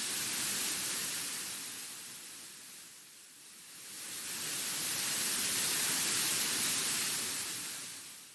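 Computer-generated noise sound effect: a steady hiss that swells in, dips about three seconds in, swells again and fades out near the end.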